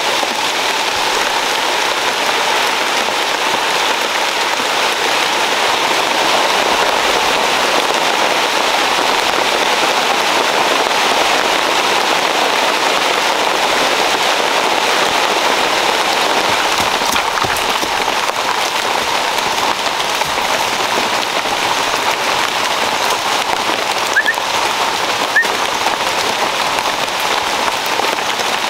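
Steady rain falling on the forest canopy's leaves, an even hiss of drops that keeps on without a break. Two brief faint chirps sound near the end.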